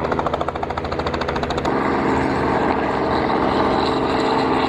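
Helicopter rotor chop and engine drone, with rapid chopping pulses over the first second and a half settling into a steadier drone.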